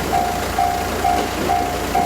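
Japanese railway level-crossing electronic warning bell ringing, a repeated single-tone beep at a little over two a second, as the crossing warns of an approaching train. The rumble of the train drawing near grows under it toward the end.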